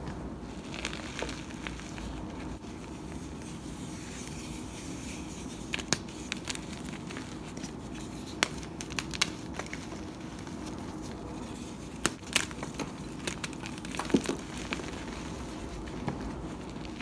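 Gym chalk blocks loaded with charcoal being crushed and crumbled by hand: a steady gritty crunching with scattered sharp cracks and snaps, more of them and louder in the second half.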